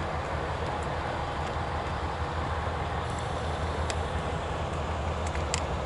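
Manual wheelchair rolling forward over station-yard pavement: a steady low rumble with a few light, sharp clicks from the chair.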